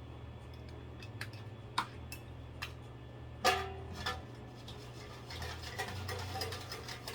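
Light clinks and taps of metal espresso machine parts, the filter basket and shower screen, being handled and set into a container, with one louder ringing clink about three and a half seconds in. A steady low hum runs underneath.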